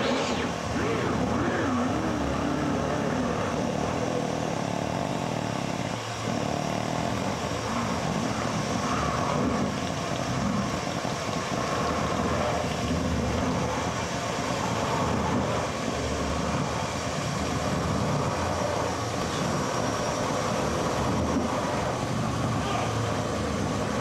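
Dense, unbroken roar of live amplified noise, with faint wavering tones drifting through it and a brief dip about six seconds in.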